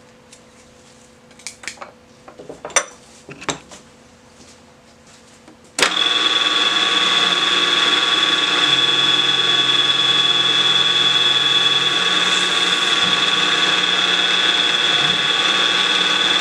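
A few light clicks and knocks, then about six seconds in a PM-940 CNC mill's spindle cuts in abruptly and runs with a steady high-pitched whine as the end mill faces a block of UHMW plastic.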